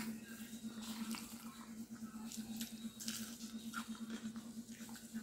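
Close-up wet mouth sounds of a person eating spaghetti: chewing and slurping with soft smacks and small clicks, over a steady low hum.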